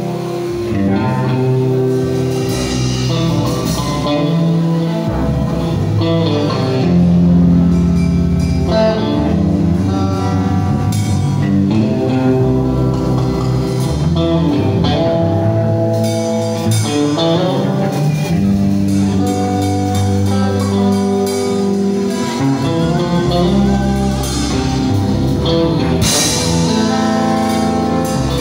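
Electric guitar played live through an amplifier, picking out a melody of held notes over a steady bass line, with drums behind it and a few cymbal crashes.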